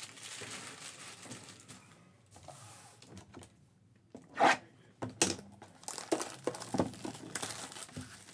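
Cardboard trading-card box (Panini Crown Royale) being handled and opened: soft rustling and crinkling for the first few seconds, then a series of sharp taps and knocks from about four and a half seconds in as the box is picked up and turned over.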